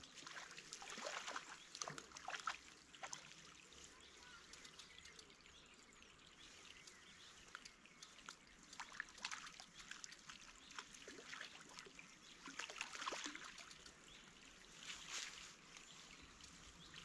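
Faint water trickling and lapping at the shoreline, with small irregular ticks and drips scattered throughout.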